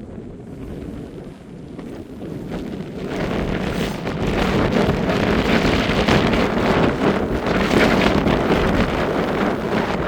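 Strong wind buffeting the microphone in gusts. It swells into a louder gust about three seconds in and eases a little near the end.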